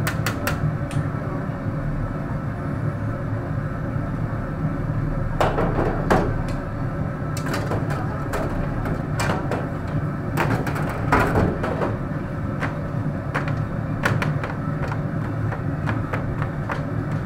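Stainless steel rice-noodle-roll steamer trays sliding in and out and clattering, with scrapes and knocks of a scraper on the metal trays, in short bursts several times over a steady low hum.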